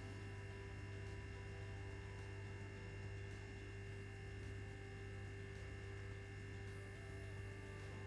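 Faint, steady electrical hum with a few constant higher tones above it, unchanging throughout.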